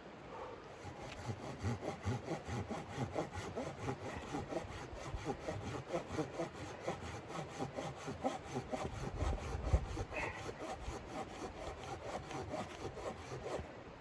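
Hand saw cutting through wood in quick, even back-and-forth strokes, a few per second. It starts about a second in and stops just before the end, with a low thump about two-thirds of the way through.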